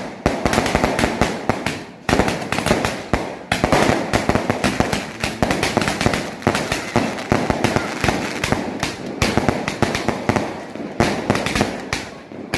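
Dense barrage of firecrackers and fireworks going off, countless sharp bangs and crackles overlapping almost without a break, with short lulls about two seconds in and near the end.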